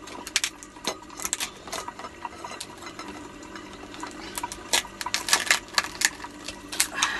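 Cooked crab being broken apart by hand: a run of sharp cracks and snaps of shell, thickest about four to six seconds in.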